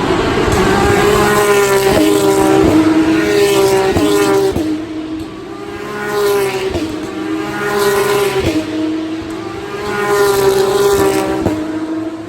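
Racing car engine at full throttle, accelerating through the gears: the pitch climbs in each gear and drops sharply at each upshift, about every one to two seconds.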